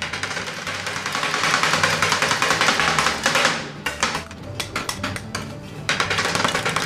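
Two metal spatulas chopping and scraping ice cream on a steel cold plate: a sustained scraping rasp for about three seconds, then quick metallic clacks of the blades striking the pan, over background music.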